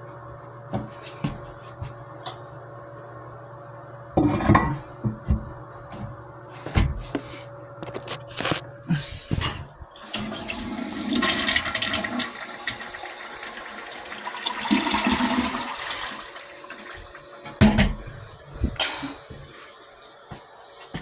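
A toilet flushing: water rushing for about five seconds, with knocks and clunks before and after it.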